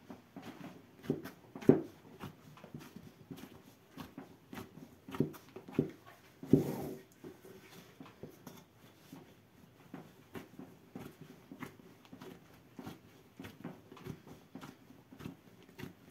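Bread dough being kneaded by hand in an enamel basin: irregular squelching, slapping and thudding as the dough is pressed, lifted and folded over, with the loudest thuds near 2 seconds and just before 7 seconds.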